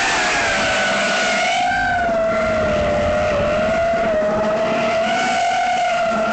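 SpeedyBee Mario 5 XH FPV quadcopter's brushless motors whining in flight. The pitch drops sharply right at the start as the throttle comes off, then holds fairly steady with small wavers, over a rush of wind and propeller noise.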